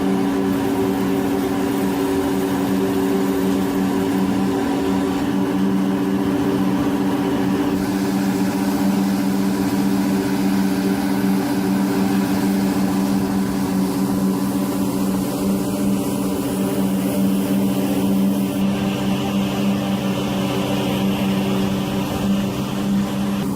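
Heavy construction machine's engine running steadily at a constant speed, a low, even drone.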